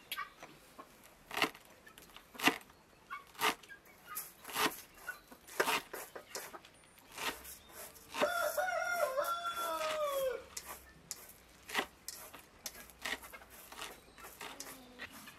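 A cleaver chopping fresh mint on a wooden cutting board, with a sharp chop about once a second. A rooster crows once for about two seconds midway, its call falling at the end.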